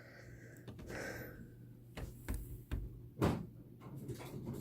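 A few soft knocks and thumps, the loudest a little past three seconds in, over a low steady hum.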